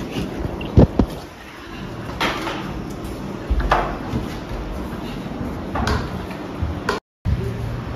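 Scattered knocks and thuds of people moving about a bare room, with two loud thumps about a second in. The sound cuts out briefly near the end.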